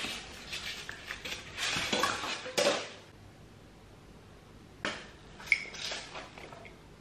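Plastic wrapping rustling and parts knocking as white panels of a flat-pack cat tree are pulled out of a cardboard box. After a quiet gap, a sharp click and then a ringing clink of a drinking glass being handled.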